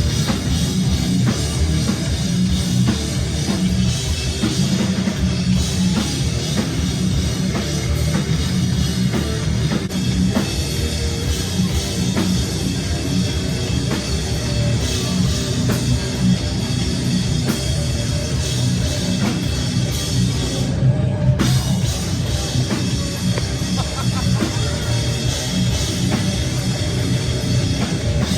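A heavy rock band playing live, with a drum kit and distorted guitars, loud and unbroken.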